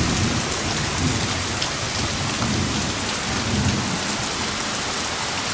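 Heavy, steady hurricane rain pouring down in gusting wind from the outer bands of a hurricane, with a low rumbling that swells and fades, strongest in the first couple of seconds.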